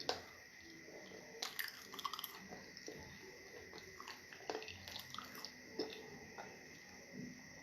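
A person eating fufu with stew close to the microphone: soft wet chewing and mouth sounds with scattered small clicks. A faint steady high tone sits behind them.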